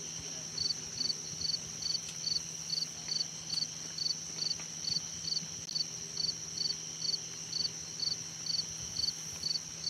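Night insects calling: a steady high-pitched trill with another insect chirping in even pulses about two and a half times a second, like crickets. A faint steady low hum sits underneath.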